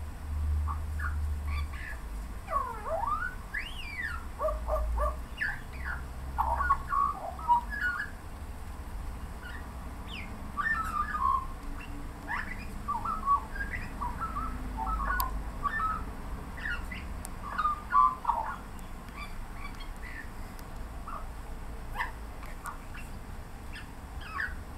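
Australian magpie singing: quick clusters of short warbled notes, many sliding up or down in pitch, thinning to a few scattered notes near the end. A low background rumble runs underneath.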